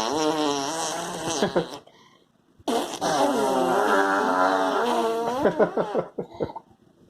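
Two long fart noises with a wavering pitch. The first stops just before two seconds in; the second, longer one starts a second later and ends in a few short sputters.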